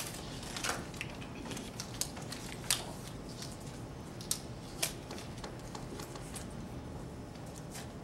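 Paper cards being sorted and laid down by several people: scattered light clicks and taps of card on tabletop, most of them in the first few seconds, over a steady low room hum.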